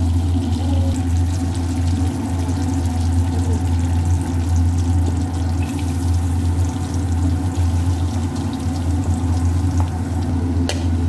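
Melted butter sizzling in a hot frying pan, over a steady low hum, with a couple of light clicks near the end.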